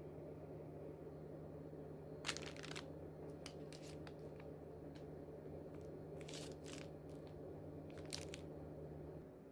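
Plastic packaging crinkling and tearing in several short rustles, over a steady low hum.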